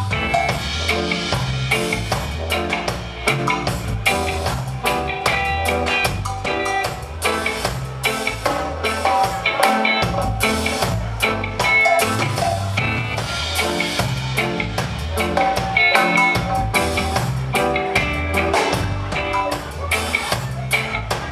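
Live band playing with electric guitar, bass guitar and drum kit, carried by a steady, regular bass pulse.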